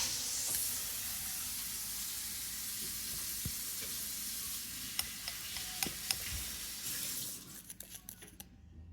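A steady hiss like sizzling or fizzing, with a few light clicks about five to six seconds in, fading out near the end.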